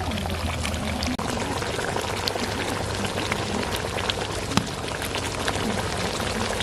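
Pointed gourd and egg curry bubbling in the pot: a steady hiss of boiling with many small pops.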